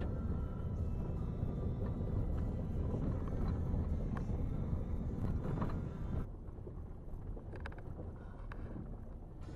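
Car rolling slowly along a gravel road, heard from inside the cabin: a steady low road and engine rumble with short crackles of gravel under the tyres. The sound drops abruptly about six seconds in.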